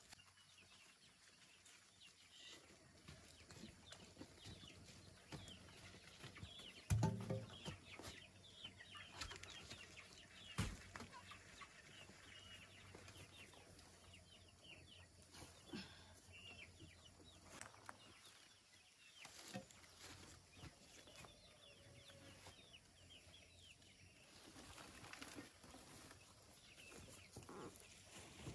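Chickens clucking faintly. A louder short low sound comes about seven seconds in, and a sharp knock a few seconds later.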